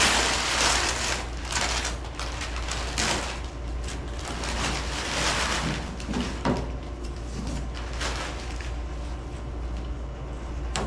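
Rustling and crumpling of a bundle of leftover garage-door insulation material as it is handled and pulled out of the car's rear compartment, in irregular swells, with a couple of light knocks a little past the middle. A steady low hum runs underneath.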